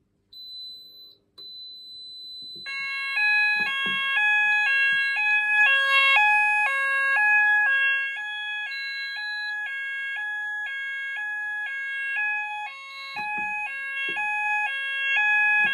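Fire alarm sounders on a System Sensor AlarmSense two-wire fire alarm test rig going off: first a single steady high beep, then from about three seconds in several sounders join with an alternating two-tone warble, switching about twice a second over a steady high tone.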